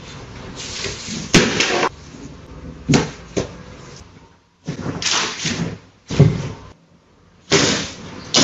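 A husky knocking about furniture and clutter: a series of sudden thuds and clatters, a second or two apart.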